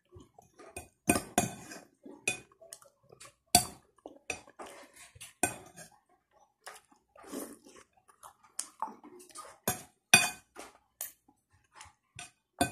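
Metal spoon and fork clinking and scraping against a plate while eating, in irregular sharp clinks, the loudest about a second in, about three and a half seconds in and about ten seconds in.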